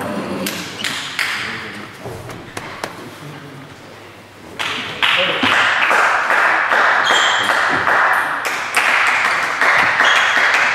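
Table tennis ball clicking off bats and table. About four and a half seconds in, loud voices and crowd noise rise and carry on, with more ball clicks through them.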